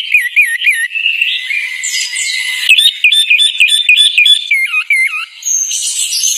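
A songbird singing in clear whistled notes: three warbling notes, a held note, a quick run of about eight repeated notes, then three falling notes near the end.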